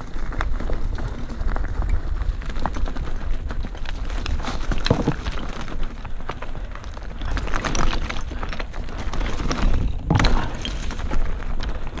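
Mountain bike rolling down a stony forest trail: loose stones crunching and clattering under the tyres, and the bike knocking over bumps, against a steady low rumble. The hardest knocks come about five seconds in and again around ten seconds.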